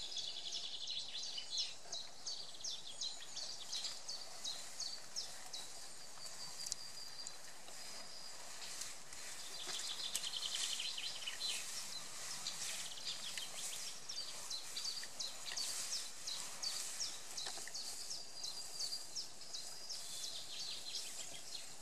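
Birds chirping and trilling, many short high calls overlapping without a break, with a few quick rattling trills.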